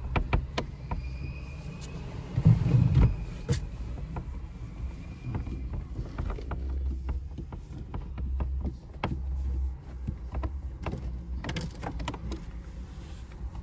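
Hand screwdriver backing Torx screws out of a car dashboard display's mounting: scattered light metal and plastic clicks and scrapes over a steady low hum, with a louder knock of handling about two and a half seconds in.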